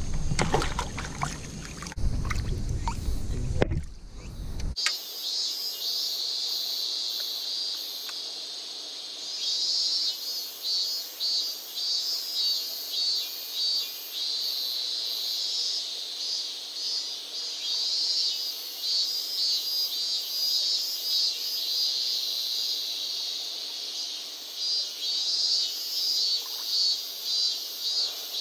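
For about the first five seconds there is loud low rumbling with a few knocks, like handling noise on the microphone as the rod is swung out. It cuts off suddenly and is followed by steady high insect chirring that swells and fades in pulses about once a second.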